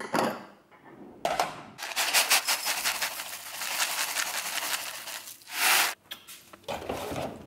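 A ceramic bowl clinks as it is lifted from a stack of bowls. Then rolled oats pour into the bowl on a kitchen scale, a dense pattering rattle of flakes lasting several seconds. Just before the end comes a short loud noise as the fridge is opened.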